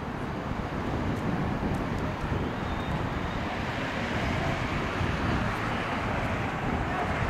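Steady road traffic noise on a city street, with wind buffeting the microphone.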